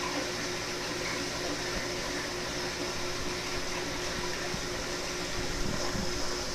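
Steady water circulation and equipment hum from a reef aquarium's pumps and filtration: an even hiss with a constant low hum.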